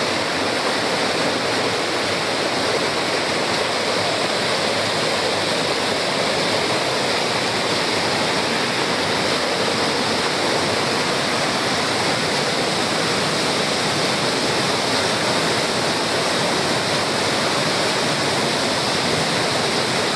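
Small woodland waterfall's whitewater rushing over rock ledges close by: a steady, loud, even rush of water with no breaks.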